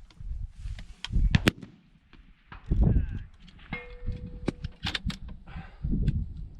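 Gusty wind rumbling on the microphone, with several sharp clicks and knocks from the rifle and gear being handled. The loudest crack comes about a second and a half in.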